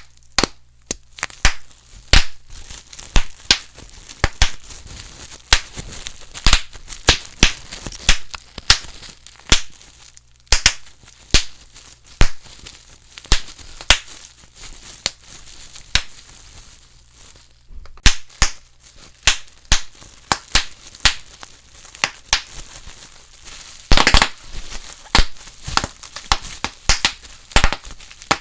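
Bubble wrap being popped: sharp single pops at an uneven pace, about one to three a second, with plastic crinkling between them and a quick run of pops near the end.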